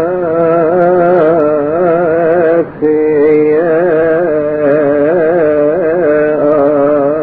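Melodic music: a sustained, wavering melody line held over a steady low drone, broken by one short gap about two and a half seconds in.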